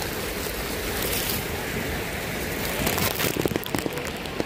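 Wind buffeting a phone's microphone, a steady rushing rumble, with a few short handling knocks about three seconds in as the phone is moved.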